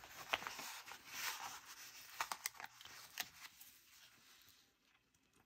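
Faint rustling of paper and sticker sheets being handled, with a few light clicks and taps, fading almost to silence near the end.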